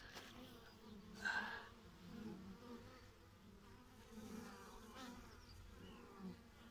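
Honey bees buzzing as they fly in and out at a hive entrance: a faint hum that swells and fades as single bees pass close, with one brief louder burst about a second in.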